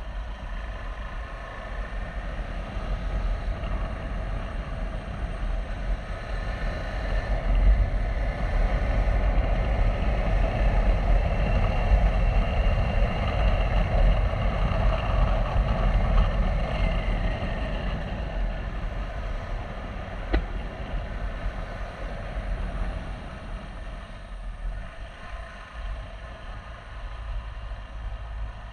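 KTM 390 Adventure's single-cylinder engine under way: it builds speed and gets louder over the first eight seconds, holds at speed, then its pitch falls as the bike slows down through the gears. A steady low wind rumble on the microphone runs underneath.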